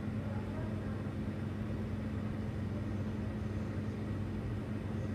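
Natural gas and oxygen bench torch burning steadily, a constant rushing noise, with a steady low hum under it.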